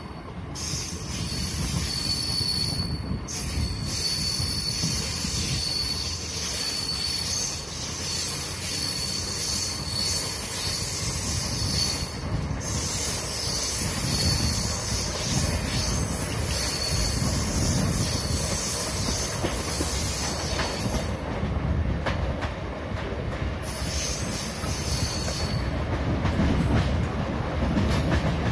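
Train running along the track, heard from aboard: a steady rumble of wheels on rail with a thin, high-pitched wheel squeal that breaks off briefly a few times.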